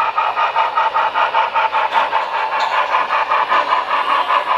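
Steam-locomotive chuffing from a model Union Pacific 4-8-4's sound system, played through a small speaker: a quick, steady beat of about five or six chuffs a second with little bass.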